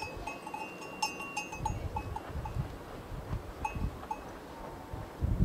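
Bells on the cattle clinking irregularly as the animals move while feeding, in clusters of small ringing strikes that thin out after about three seconds, over low gusty rumbles, the loudest just before the end.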